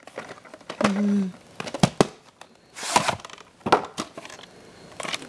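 A VHS tape and its case being handled: a series of sharp plastic clicks and knocks with some rustling, and a short scuffing burst about three seconds in.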